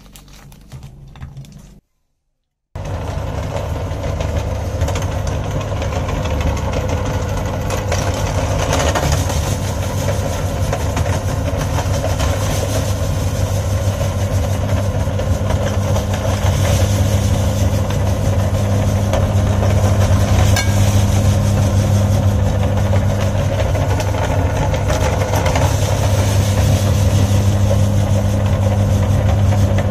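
A foil cookie wrapper crinkles briefly. After a short break, a motor-driven aluminium meat grinder starts running with a steady low hum as Oreo cookies are fed in and ground into crumbs.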